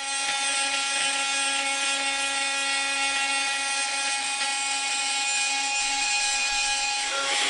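Bosch GOP 250 CE oscillating multitool running with a steady buzzing whine, its blade oscillating, with a harsher hiss near the end.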